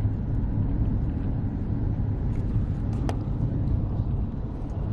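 Steady low road and engine rumble heard from inside a moving van's cabin, with one short click about three seconds in.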